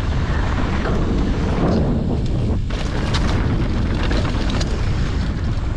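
Mountain bike riding over dirt: steady wind buffeting on the microphone and rumbling tyres, with a few brief rattles and knocks from the bike.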